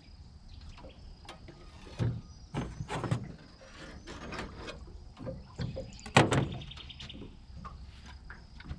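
Irregular knocks, scrapes and clatter of gear being handled in an aluminium boat, the loudest a sharp knock about six seconds in, followed by a short rattle.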